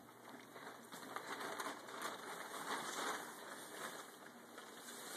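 Light, irregular rustling and scratching of the nylon fabric of a children's pop-up play tent and crawl tunnel, a little louder between about one and three seconds in.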